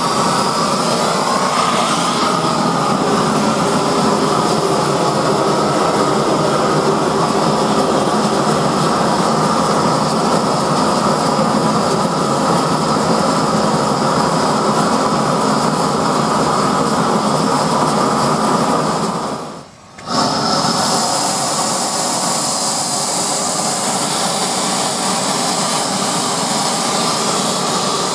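Propane torch burning steadily, its flame held against a fire-proof-coated panel. The noise drops out briefly about twenty seconds in.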